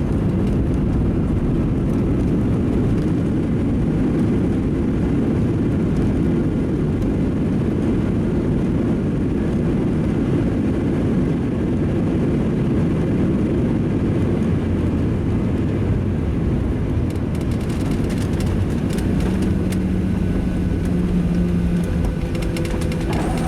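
Boeing 737-700 cabin noise near the wing as the jet lands and slows: a steady low rumble of engines, airflow and wheels, with a steady low engine hum coming in near the end.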